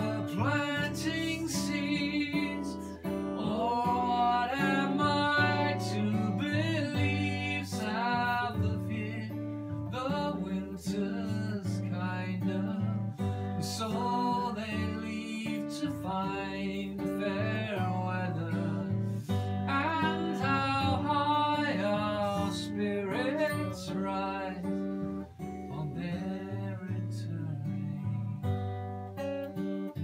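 Live performance of a song: a man singing to his own acoustic guitar accompaniment. The guitar notes and the sung melody go on throughout with no break.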